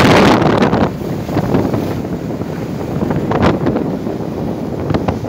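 Wind buffeting the microphone over the rush of churning water along the hull of a boat under way, loudest in the first second.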